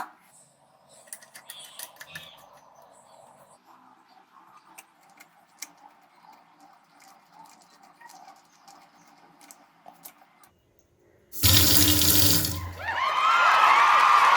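Faint clicks and light handling, then about eleven seconds in a water tap is opened and water runs loudly into a sink.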